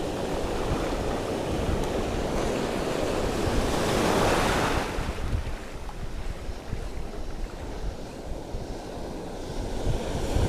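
Sea waves washing onto a shallow reef shore, one wave surging louder about four seconds in and then receding, with wind buffeting the microphone.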